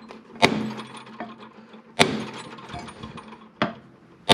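Hammer blows on the housing of a seized 136-amp Jeep alternator, about one every second and a half, each a sharp strike with a short metallic ring, the third one lighter. They are meant to break the stuck housing halves apart.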